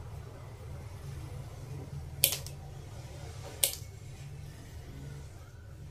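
Two sharp snips of hand wire-cutting pliers biting through electrical wire or its insulation, about a second and a half apart.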